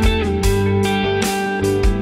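Electric guitar improvising a lead line over a mellow ambient groove backing track in A minor, with a steady drum beat underneath.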